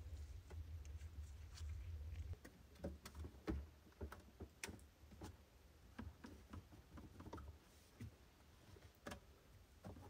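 Faint, scattered clicks and taps of plastic parts being handled inside a refrigerator's freezer compartment, with a low hum that stops about two seconds in.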